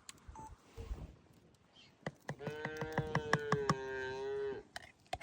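One long, drawn-out animal call on a single steady note that sags slightly before it stops, about two and a half seconds in, with a quick series of sharp clicks or knocks around its first half.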